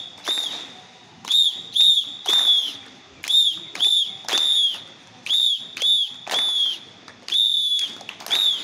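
A whistle blown in rhythmic blasts, repeating in groups of two short blasts and one longer one, keeping time for a mass drill exercise.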